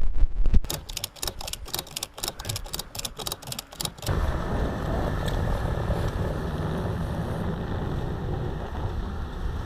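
A quick run of sharp clicks, about five a second, then about four seconds in a snowmobile's engine and travel noise starts abruptly and runs steadily.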